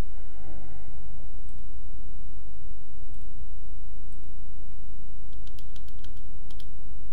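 Computer mouse clicks every second or so, then a quick run of about eight keyboard key presses about five seconds in, over a steady low hum.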